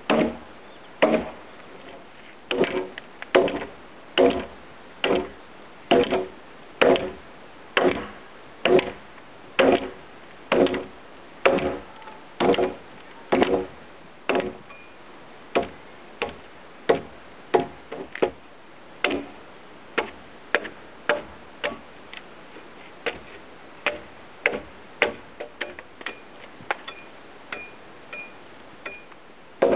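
A replica medieval axe chopping into a timber beam to shape a tenon, one sharp blow about every second. In the last third the blows come lighter and a little quicker, as the axe is held short near the head to trim the tenon.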